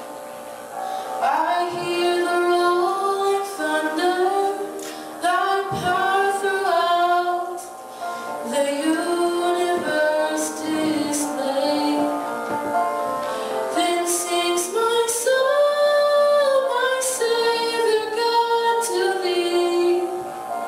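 A woman singing a solo into a handheld microphone, a slow melody with several long held notes.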